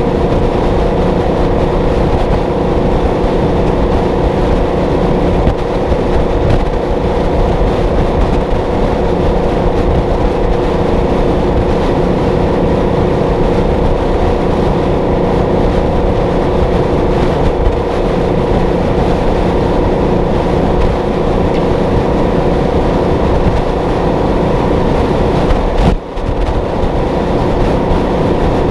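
Detroit Diesel 12V71 two-stroke V12 of a Kenworth W900A running steadily at motorway cruise, hauling a 40 ft container. Its level dips briefly once near the end.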